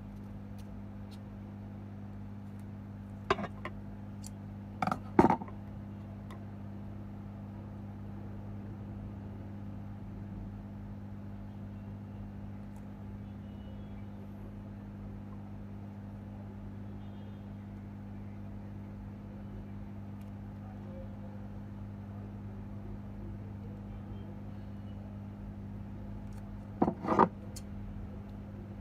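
A steady low electrical hum, with a few sharp clicks or taps about three seconds in, around five seconds, and a short cluster near the end.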